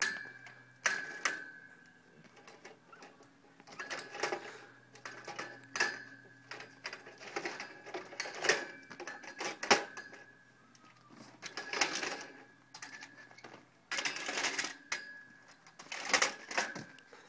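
Metal kick scooters clattering and knocking against a steel scooter rack as they are slotted in and shifted: clusters of clicks and rattles every second or two, some knocks followed by a short metallic ring.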